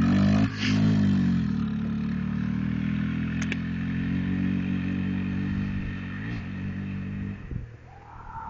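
Riding lawn mower's small engine running, its pitch dipping briefly about half a second in and then holding steady, fading out after about seven seconds as it moves off.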